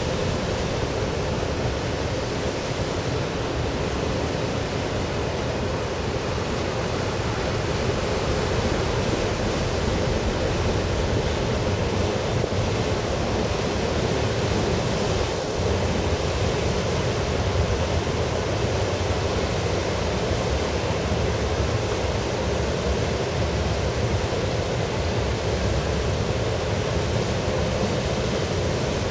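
Steady rushing of harbour water churned by a car ferry's propellers as it manoeuvres alongside its berth.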